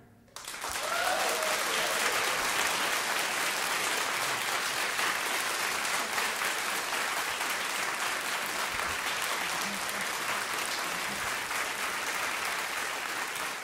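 Audience applauding steadily, starting just after the song ends.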